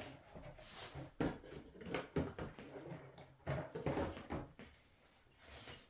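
Light handling noise from plastic model kit parts and their packaging: a few soft knocks and rustles at irregular moments.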